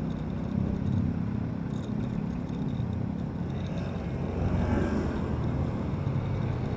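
Honda motorcycle's engine running steadily while riding through traffic, with wind and tyre noise on wet asphalt. About four and a half seconds in, a car passes close alongside with a short swell of noise.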